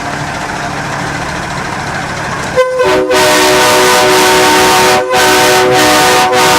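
A train horn mounted on a tow truck, sounding a chord of several notes at once. A short toot about two and a half seconds in, then long, very loud blasts with two brief breaks.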